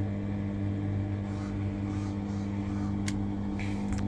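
A steady low hum, with a single sharp click about three seconds in.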